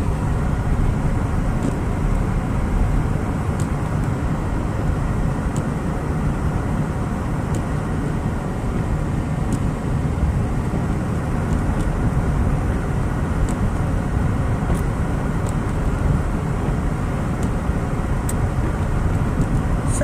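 Steady low rumble of tyres and engine heard inside a car's cabin while driving at about 30 mph on a snow-covered road, with a faint tick about every two seconds.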